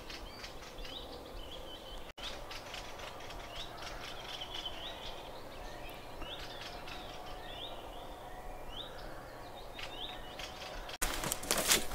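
Small songbirds chirping outdoors: a short upward-sweeping note repeated every second or so among other twittering. Near the end, after a brief gap, louder crackling and knocking noises take over.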